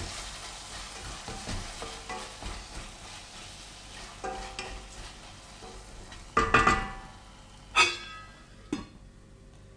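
Minced meat sizzling in a stainless steel pot while a wooden spoon stirs and scrapes through it with light knocks. Just past the middle come a few loud metallic clanks that ring briefly, and the sizzle is quieter after them.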